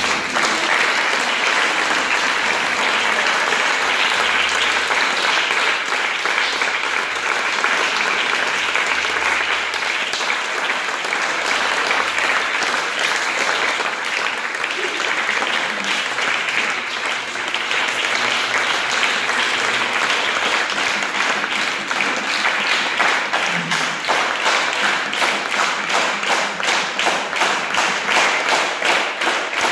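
Audience applauding. The clapping turns into rhythmic clapping in unison over the last several seconds.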